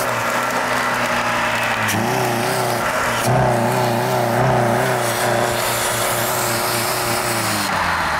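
Chrysler PT Cruiser's four-cylinder engine running as the throttle is worked by hand at the throttle body: the revs rise about two seconds in, climb again a second later and hold with a wavering, uneven note, then drop back near the end. The owner takes the rough running for fuel starvation.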